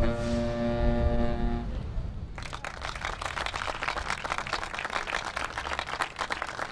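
Saxophone quartet holding a final chord that cuts off just under two seconds in, followed about half a second later by an audience applauding.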